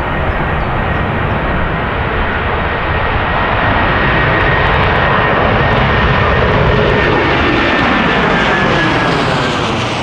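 Airbus A330-243's two Rolls-Royce Trent 700 turbofans at takeoff thrust as the climbing jet passes overhead: a loud, dense engine noise with a thin high whine that bends slightly lower late on. It grows louder toward the middle and starts to fade near the end.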